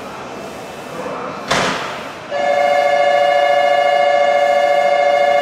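Approaching Meitetsu electric train sounding its horn: a loud, steady two-tone blast that starts a little over two seconds in and holds without change. A short burst of hiss comes just before it.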